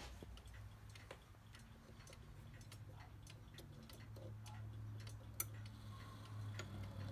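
A Howard Miller triple-chime regulator clock movement ticking steadily and faintly over a low hum, running on its new time mainspring and suspension spring.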